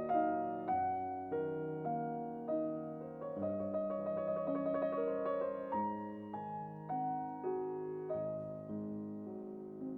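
Background piano music: a slow melody of single notes struck about every half second and left to fade, with a busier run of notes in the middle.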